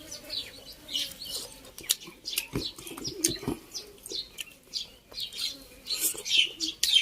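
Close-up eating sounds: chewing and mouth smacking, an irregular run of short sharp clicks with a few louder mouthfuls a little past the middle.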